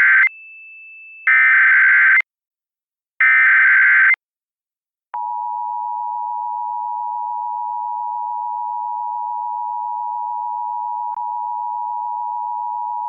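Emergency Alert System SAME header: the end of one buzzy data burst, then two more, each about a second long and a second apart. About five seconds in, the steady two-tone EAS attention signal begins and holds for about eight seconds, announcing an emergency alert, here a hazardous materials warning.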